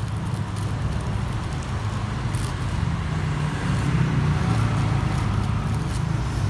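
A steady low rumble, with a few faint clicks and rustles about two and a half seconds in and again near the end.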